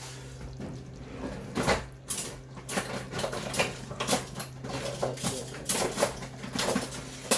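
Spoon clinking and scraping against a cooking pot again and again as curry chicken is scooped out into a container, over a steady low hum.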